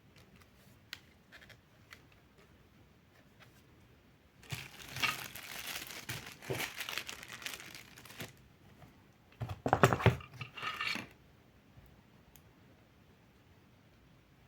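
Crinkly packaging handled and crumpled by hand in two spells, a longer one and then a shorter, louder one, after a few light clicks.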